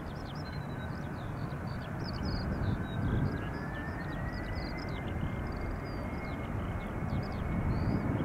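Boeing 767-300ER freighter's turbofan engines running with a steady low rumble and a whine that rises in pitch about two seconds in, then holds steady, as the engines spool up for takeoff. Small birds chirp throughout.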